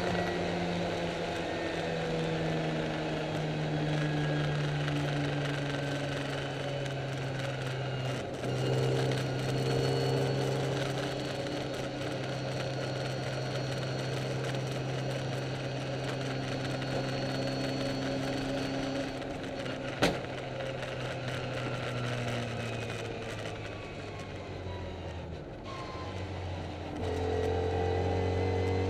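Classic Mini race car's engine heard from inside the cabin, running hard at a steady note. There is a brief break in the note about eight seconds in and a single sharp click about twenty seconds in. Near the end the note falls, then picks up again. The uploader says the car is down on power.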